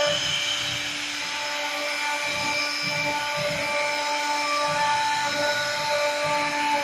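Large CNC router machine running, its motors whining in several steady tones that cut out and come back every second or so.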